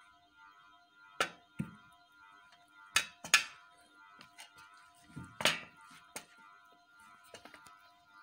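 Several sharp knocks and taps from hands handling a whole raw chicken on a steel tray while rubbing in marinade, loudest about three and five and a half seconds in, over faint background music.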